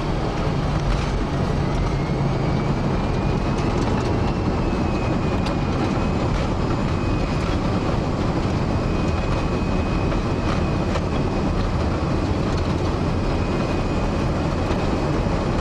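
Boeing 737-400 cockpit noise on the landing rollout: a steady rumble of the wheels on the runway and the CFM56 engines, with a high whine that rises slightly in the first few seconds and then holds steady. A few light clicks are scattered through it.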